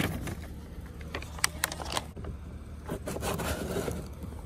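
Dry compost-accelerator granules pouring from a plastic pouch into a plastic compost bin, a rustling rush that tails off about half a second in, followed by the pouch crinkling and scattered light clicks and knocks against the bin, over a faint steady low rumble.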